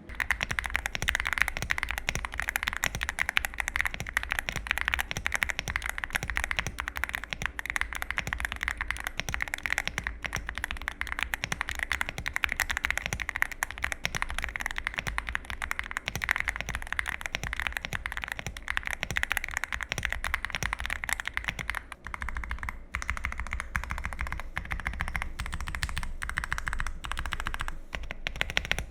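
Fast, continuous typing on a Yunzii AL66 mechanical keyboard with a CNC aluminium case, a light clacky keystroke sound, with brief pauses about 22 and 28 seconds in.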